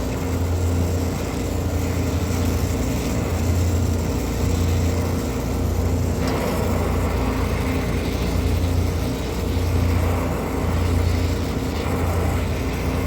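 Steady low mechanical hum of running machinery, swelling and fading every second or two.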